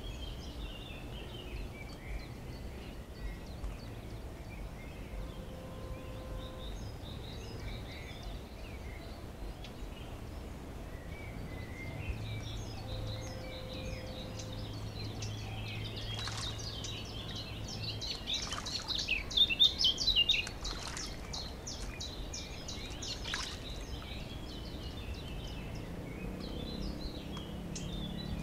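Small songbirds chirping and singing throughout, with a louder, denser run of chirps about two-thirds through. A few brief knocks are heard, and a faint low hum runs for several seconds in the middle.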